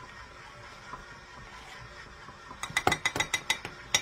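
Measuring spoons clinking: a quick run of about ten sharp, lightly ringing clicks, starting a little past halfway, while baking soda is measured out with them.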